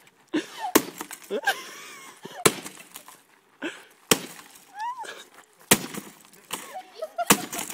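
A sledgehammer smashing a desktop computer: five heavy blows about a second and a half apart, each cracking and breaking the case and its parts.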